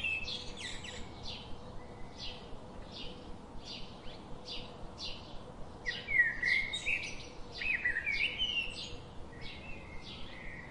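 Birds chirping: a short high note repeated about every two-thirds of a second, with louder calls in short stepped, rising phrases around six to eight seconds in.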